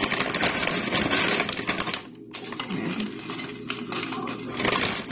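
Tortilla chips crackling and rustling as they are handled and laid by hand into a glass dish, with a short pause about two seconds in.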